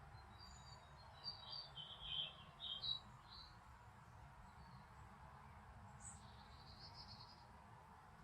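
A small songbird gives a quick run of short, high chirps in the first few seconds, then a brief buzzy trill about six seconds in, over a faint steady low background noise.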